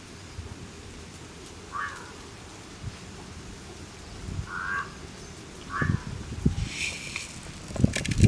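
A bird outdoors calls four times, short calls spaced a second or more apart. Near the end there are low knocks and the rattling hiss of dry lentils being poured into a clay pot.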